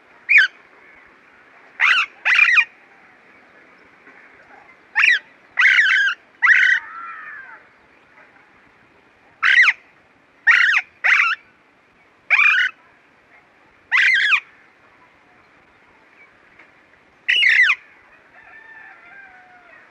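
Alexandrine parakeet giving short, harsh calls, about a dozen in all, some single and some in quick pairs, with pauses of one to three seconds between them.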